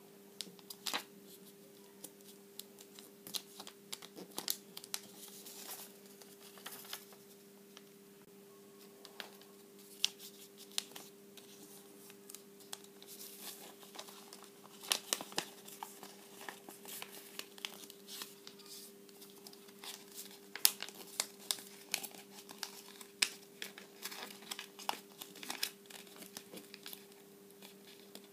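Origami paper being folded and creased by hand: irregular crinkling, rustling and sharp crackles as the paper is bent and pressed flat, over a faint steady hum.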